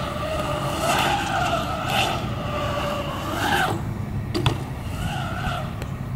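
BMX bike tires rolling fast on smooth concrete, a whirring hum that rises and falls in pitch as the rider speeds up and slows through the bowl's transitions. A sharp knock about four and a half seconds in as the bike lands from an air.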